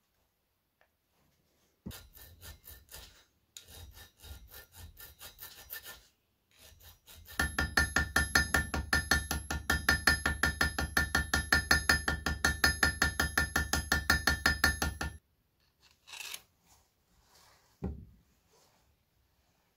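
Small hammer tapping quickly on a copper pin set through a reindeer antler sheath tip, peening it over against a steel anvil rail. First comes a softer run of taps, then a longer run of harder, even strikes about five a second with a metallic ring, which stops suddenly.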